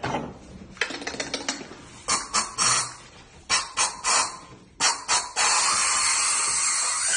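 Spray-like hissing in short bursts, mostly in quick groups of three about a third of a second apart, then a steady hiss for the last couple of seconds.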